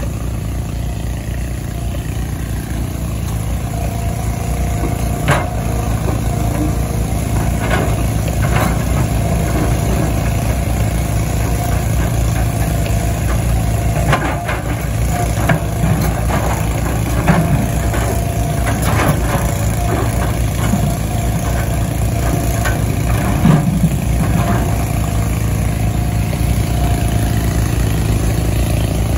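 Tata Hitachi Zaxis 120H excavator's diesel engine running steadily as it works, with scattered knocks and clanks of heavy rock in the steel bucket and dropping into the truck.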